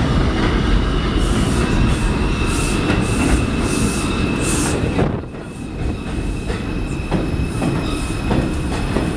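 Bombardier R142 subway train pulling into the station and braking to a stop: loud rumble of steel wheels on the rails, with a thin steady high tone and brief hissing bursts in the first half. The noise dips for a moment about five seconds in.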